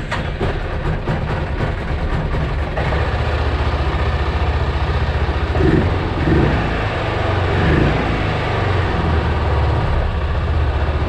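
2008 Arctic Cat Prowler 650 XT's engine idling steadily just after starting, with a few brief swells in level around the middle.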